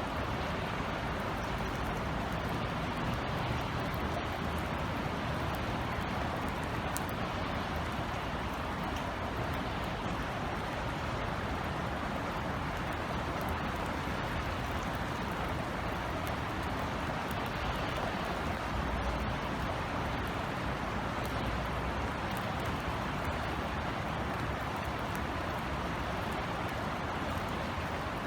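Steady rain falling, an even hiss with a few sharper drop ticks, over a low background rumble.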